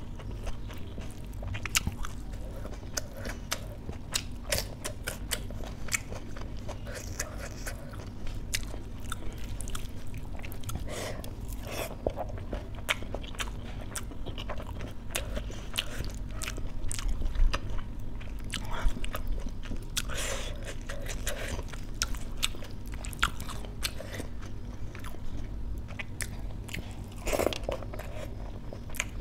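Close-miked eating sounds: wet chewing and mouth clicks from someone eating rice and dal by hand, with crunchy bites scattered throughout, over a steady low hum.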